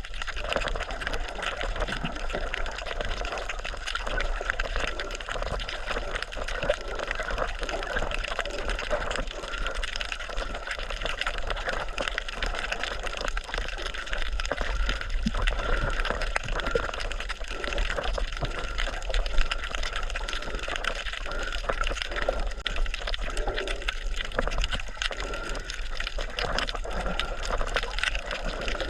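Water sloshing and splashing steadily, with a continuous crackle of small drops and bubbles.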